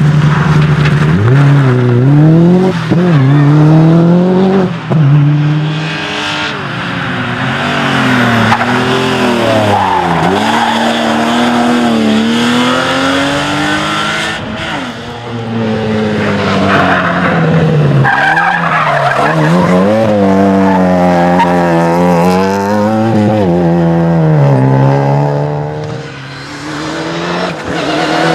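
Rally cars driven hard on a special stage, engines revving up and dropping back again and again through gear changes, with tyres skidding.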